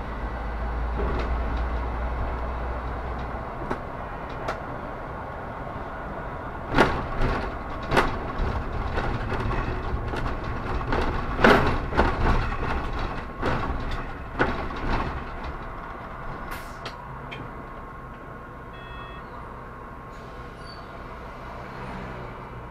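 Inside a Solaris Urbino 18 articulated bus on the move: a low engine rumble, strongest for the first few seconds, with knocks and rattles from the body and fittings over the road in the middle. It grows quieter toward the end, where a few short electronic beeps sound.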